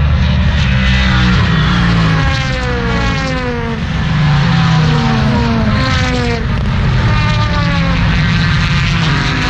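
Race cars going past at speed one after another, each engine note falling in pitch as it goes by, over a steady rumble of more cars on track.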